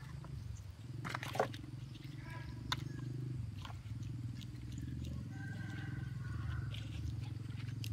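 A few sharp clicks of a knife cutting catfish on a wooden board, over a steady low pulsing rumble.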